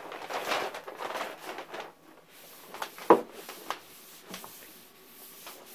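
Paper towel rustling as it is handled and folded, then rubbed over a sanded carbon-fibre panel with denatured alcohol to degrease it. There is a sharp knock about three seconds in and a few lighter clicks.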